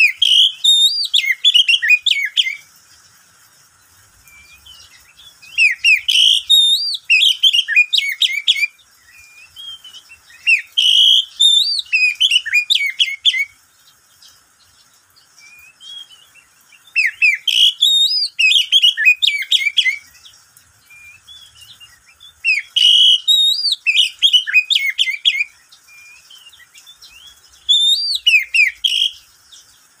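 Oriental magpie-robin (kacer) singing: six bursts of rapid, varied whistled phrases, each two to three seconds long, separated by pauses of a few seconds.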